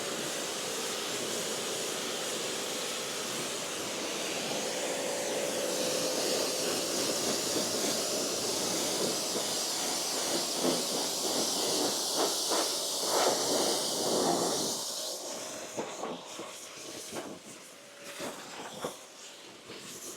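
A Giraffe Tools portable pressure washer's 25-degree nozzle jet hissing steadily as it rinses soap off a tractor, the spray noise surging as the jet strikes different surfaces. The spray stops about fifteen seconds in, leaving fainter, scattered splashes and knocks.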